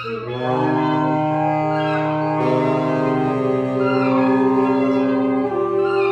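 Clarinet, alto saxophones and tenor saxophones playing free jazz together, several long held notes overlapping and shifting pitch every second or two.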